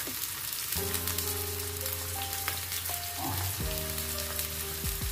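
Tomato slices and onion frying in a little ghee on a flat iron tawa over a low flame, a steady sizzle, with background music of held notes playing over it.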